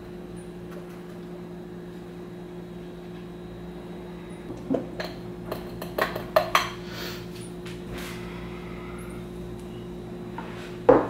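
Several short clinks and knocks of dishes and a small bottle being handled, bunched between about four and a half and seven seconds in, with one louder knock just before the end, over a steady hum.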